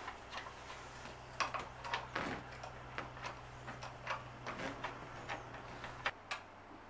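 Scattered light clicks and knocks of an office chair's metal backrest bracket and seat being handled and bolted together.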